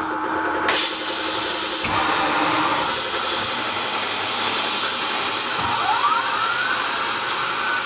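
Benchtop CNC milling machine running: the mist-coolant spray comes on under a second in with a loud, steady hiss, over the spindle and axis motors. About six seconds in, a rising whine comes in as the slotting cutter feeds down to the aluminium part.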